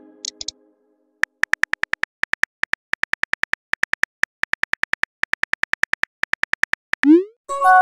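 Phone keyboard key-click sounds, about seven taps a second with brief pauses, as a text message is typed. Near the end a rising whoosh and a chime of several tones sound as the message is sent.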